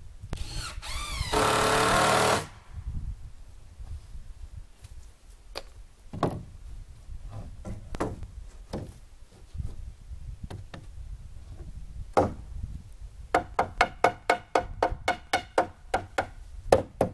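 A cordless drill runs for about two seconds near the start, its motor speeding up and then holding steady. Scattered knocks on wood follow, and near the end comes a quick run of about a dozen sharp, ringing taps, about four a second.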